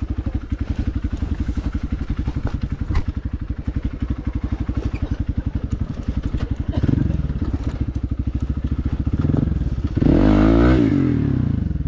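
Hero XPulse 200's single-cylinder engine idling with an even, rapid pulse, then blipped twice and revved up and back down near the end.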